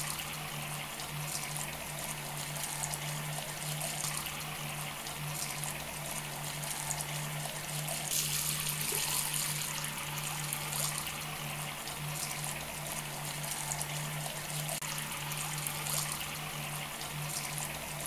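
Small fountain jets spraying and splashing steadily into a shallow stone pool, with a steady low hum underneath.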